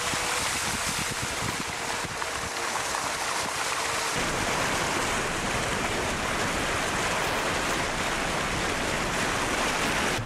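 Steady rush of water splashing and wind from a vehicle moving through shallow salt-lake water. A faint steady whine stops about four seconds in, where the sound changes abruptly.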